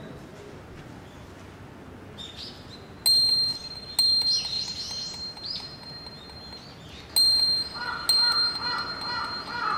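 High-pitched metal chime struck four times in two pairs, each strike ringing on as a clear steady tone. Birds chirp in the first half, over a steady outdoor hiss.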